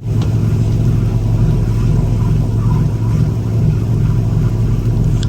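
An engine running at a steady speed: a loud, even low drone with a hum underneath, starting suddenly at a cut.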